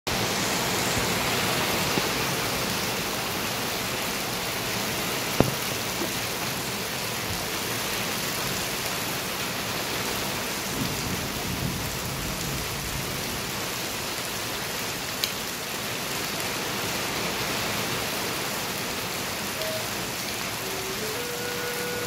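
Steady rain, with two brief sharp clicks. Near the end a double flute starts playing its first few separate notes at different pitches.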